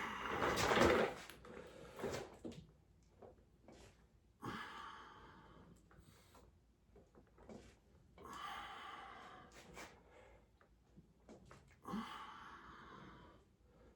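A man breathing hard through a weightlifting set: a loud, forceful breath in the first second, then long breaths out about every four seconds, with a few faint clicks between them.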